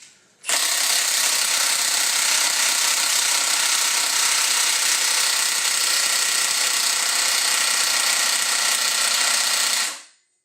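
Large impact wrench hammering continuously on the S52 engine's crankshaft bolt for about nine seconds, then stopping abruptly, without breaking the seized bolt loose.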